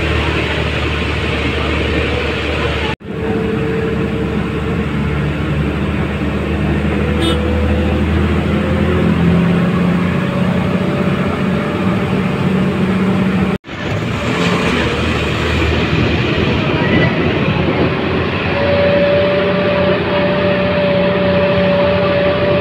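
Engine and road noise inside a moving bus, the engine note shifting in pitch a few times. The sound drops out abruptly and very briefly twice, about 3 and 13 seconds in.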